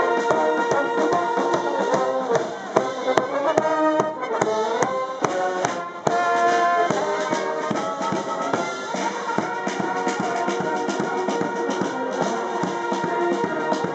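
Military bugle and brass band with drums playing a march on the move: bugles and brass such as euphonium over a steady drumbeat, with quick rising runs of notes and a short break about six seconds in before the playing carries on.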